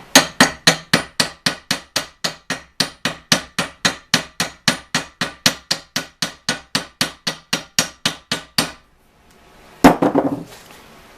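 Hammer blows peening over the end of a pin to mushroom it so it can't come out: a steady run of sharp metallic strikes, about four a second, that stop near the end, followed by one more single strike with a short ring.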